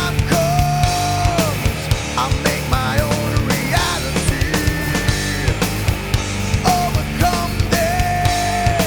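Nu metal band recording in an instrumental stretch without vocals: full band with steady drum hits under long held notes that bend into and out of pitch.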